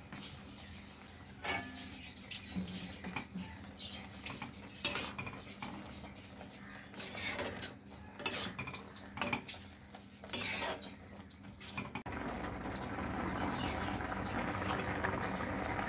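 A spatula scrapes and clinks against a metal kadai while chopped jute leaves are stirred into simmering water. About twelve seconds in, this gives way to the steady bubbling of the jute-leaf broth at a boil.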